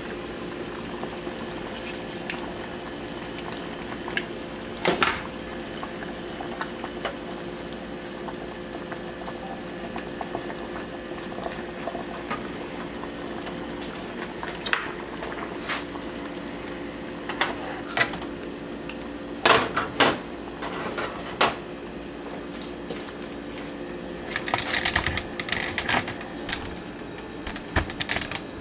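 Water at a rolling boil in a stainless steel pot with a thermostat housing submerged in it, heating the thermostat so it opens. Sharp metal clinks of a fork against the pot and the thermostat cut through: one about five seconds in, several around twenty seconds, and a rattling cluster near the end.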